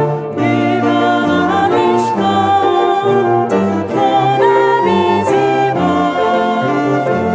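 A song played by a small band of piano and other instruments, with singing, notes held and changing at an even pace.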